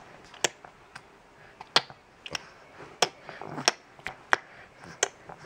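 A baby clicking his tongue: a series of about seven sharp, short clicks, spaced unevenly about half a second to a second apart.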